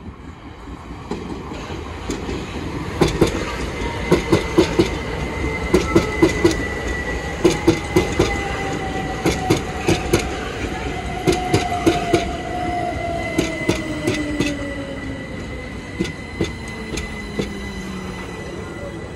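Two coupled Class 377 Electrostar electric multiple units arriving and running past at close range. Wheels click over rail joints in quick groups, with a steady high whine and a motor whine falling slowly in pitch as the train slows.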